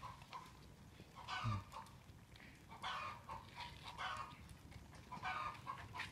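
Faint short animal calls, coming in quick clusters about once a second.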